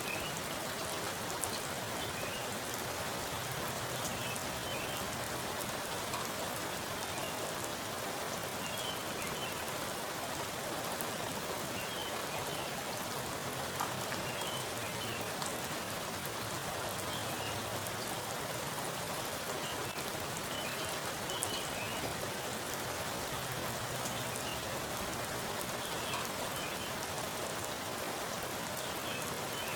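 Heavy rain falling onto a pool of standing water: a steady hiss of drops striking the surface, with individual drops plinking now and then.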